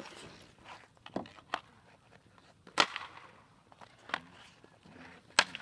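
Ice hockey shots on ice: sticks cracking against pucks and pucks hitting the target, about five sharp cracks, the loudest about halfway through.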